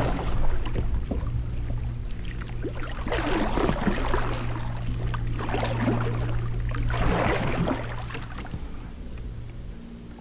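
Kayak paddle strokes, the blade dipping and splashing in the water several times, over a steady low hum that fades away near the end.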